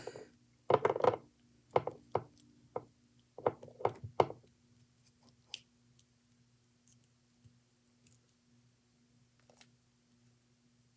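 A string of light, sharp knocks and clicks in the first four or five seconds, then only a few faint ticks over a steady low hum.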